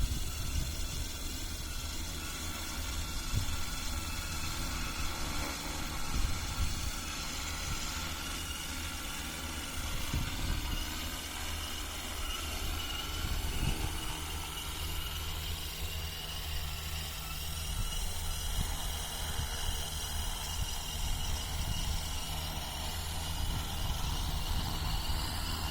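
Multirotor agricultural spraying drone flying, its propellers giving a steady hum of several high tones that waver slightly. There is an uneven low rumble of wind on the microphone underneath.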